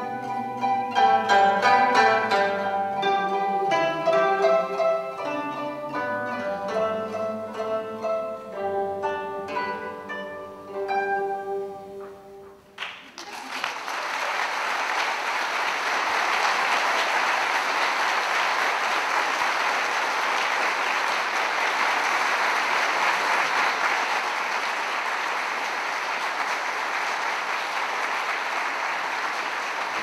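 Two kotos, Japanese long zithers, playing a plucked duet that ends about thirteen seconds in, followed by steady audience applause for the rest.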